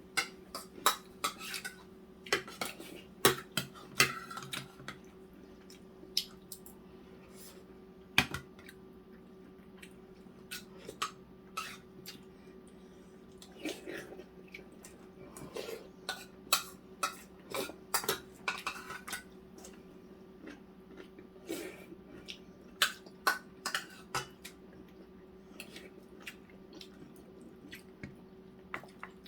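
Eating utensils clinking and scraping against dishes and bowls during a meal: many short, sharp clicks at irregular intervals, over a steady low hum.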